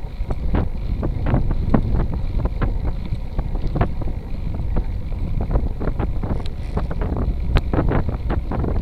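Wind buffeting the microphone as a Motobecane Fantom Cross cyclocross bike rolls along an asphalt road. A steady low rumble from the tyres and the wind runs under frequent irregular rattling clicks from the bike.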